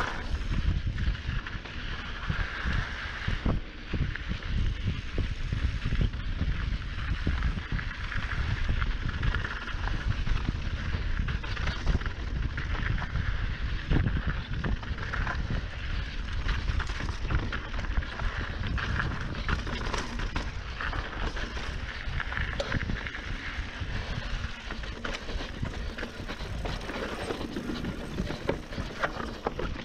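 Mountain bike riding fast on dry dirt singletrack: tyres rolling over loose dirt and gravel, and the bike knocking and rattling over bumps, with low wind rumble on the microphone.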